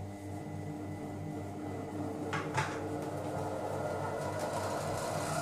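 Monsieur Cuisine Connect food processor running on its knead function, its motor working shortcrust pastry dough in the steel bowl with a steady hum. Two brief knocks come about halfway through.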